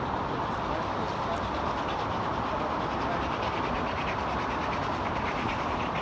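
Steady noise of passing vehicles.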